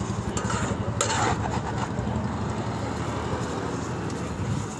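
Steady low roar of the stall's open burner flame mixed with road traffic, with a metal scraper scraping and clinking against a steel sieve-pan of puffed rice roasting in hot salt about a second in.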